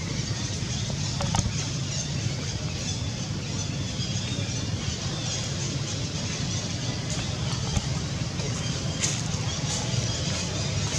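Steady low rumble with an even hiss, broken by a few faint clicks.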